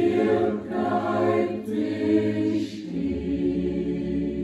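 Small mixed choir of women's and men's voices singing a cappella in sustained chords. About three seconds in they move to a lower chord and hold it.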